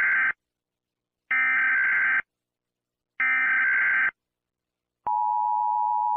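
Emergency Alert System signal: the end of one harsh digital data burst, then two more, each about a second long with a second of silence between them (the SAME header), followed about five seconds in by the steady two-tone EAS attention signal.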